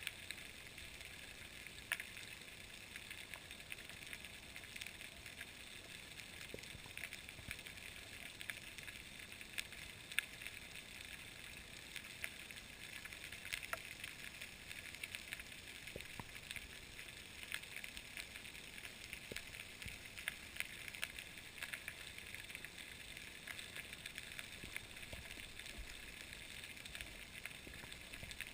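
Underwater ambience: a faint steady hiss with a scattered crackle of sharp clicks, a few of them louder.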